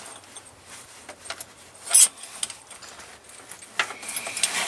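Metal clinks and scrapes from hand work on the opened gearbox of a T-40AM tractor, with one loud sharp clank about two seconds in and a quick run of clinks near the end.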